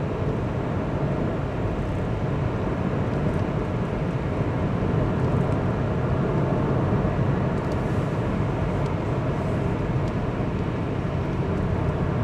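A car being driven along a road, heard from inside the cabin: steady engine and tyre noise.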